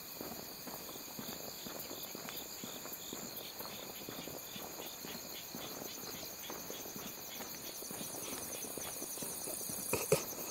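Night insects chirping steadily in several high, pulsing trills, with footsteps at a walking pace. A couple of louder knocks come near the end.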